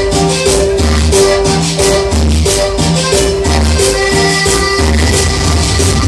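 Loud cumbia music with a rattling shaker on the beat over repeating bass notes and held keyboard tones, heard in a dance club.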